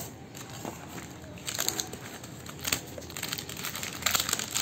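A rain-dampened cardboard shipping box being pulled and torn open by hand: rustling and crinkling of packaging with a few short crackles.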